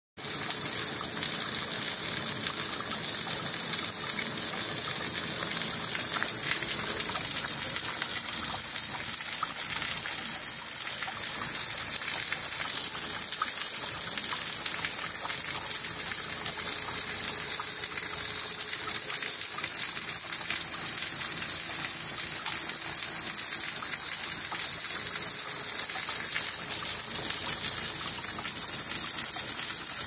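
Water from a natural spring dripping and running off a mossy rock overhang and splashing onto the rocks and into a shallow pool, a steady, even splashing.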